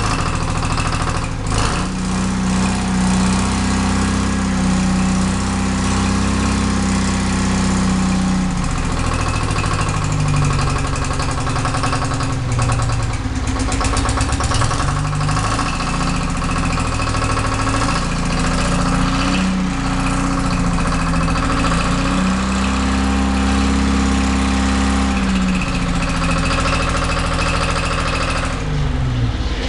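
Freshly overhauled Detroit Diesel 2-71, a two-cylinder two-stroke diesel, running while its revs are raised and lowered several times by hand at the throttle. The revs drop sharply near the end.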